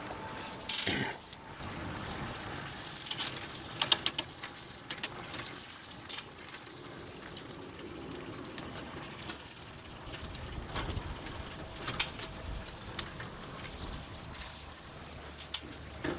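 Side-by-side pedal bike being ridden, rolling with a noisy rumble and scattered mechanical clicks and rattles, including a sharp clatter about a second in.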